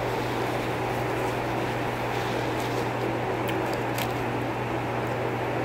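Steady hum and whoosh of a running fan, with a few faint chewing clicks.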